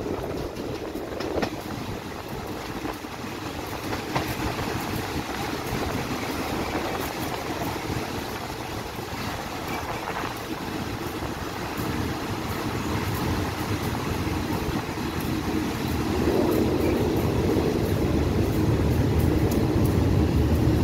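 Passenger coach of a Thai ordinary train running slowly along a station platform, heard from an open door or window: a steady rumble of wheels on the rails with scattered clicks, growing louder about three-quarters of the way through.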